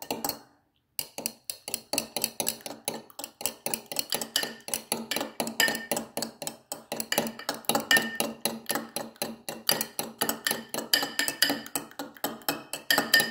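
Metal fork beating raw eggs in a drinking glass, clinking against the glass in a rapid, steady rhythm of several taps a second, with a short break just after the start.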